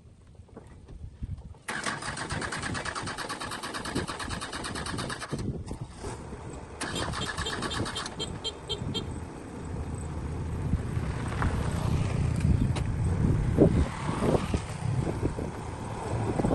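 Heavy diesel farm machinery running: after a quiet first couple of seconds, a loud rapid mechanical clatter sets in abruptly. A deeper engine rumble then builds and swells through the second half.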